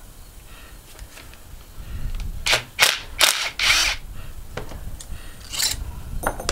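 Cordless impact driver hammering in several short bursts about two and a half to four seconds in, backing out a through-bolt of an air-conditioner fan motor, with one more brief burst near the end.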